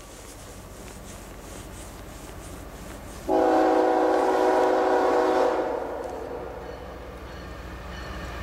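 Air horn of an approaching CSX freight locomotive: one chord blast of about two seconds, starting about three seconds in and then fading out, over a low distant rumble of the train that slowly grows louder.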